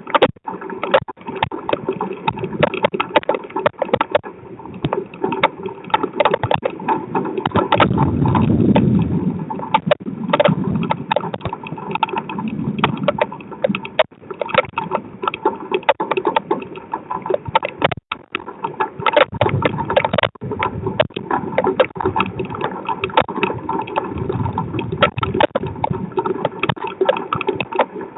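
Storm on a driveway security camera's microphone: rain pelting the camera in dense, irregular taps, with a low rumble swelling from about eight to thirteen seconds in.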